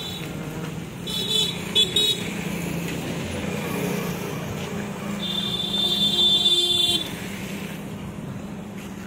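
Road traffic with vehicle horns honking: two short honks between one and two seconds in, then a longer honk of nearly two seconds from about five seconds in, over a steady engine hum.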